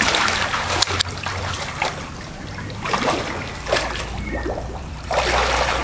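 Swimming-pool water splashing and sloshing, with a couple of sharper splashes about a second in.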